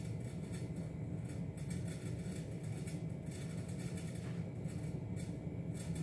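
Hands squeezing and working sticky bread dough on a countertop: soft, irregular squelching, over a steady low hum.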